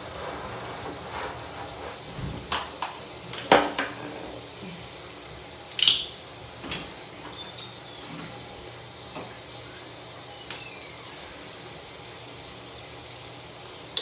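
Bathroom sink tap running steadily, with a few short knocks and clicks of things being handled at the sink, the loudest two about a third of the way in and near the middle.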